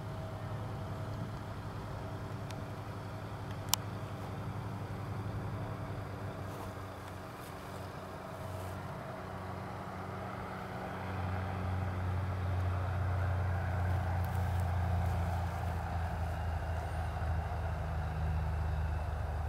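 Single-engine Cessna propeller plane's piston engine throttled back on landing approach: a steady low drone that grows louder about halfway through as the plane comes down close past the runway edge. A single sharp click a few seconds in.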